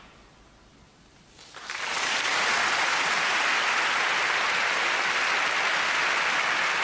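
After a short hush as the final chord dies away, a concert-hall audience starts applauding about a second and a half in. The clapping keeps up steadily and loudly.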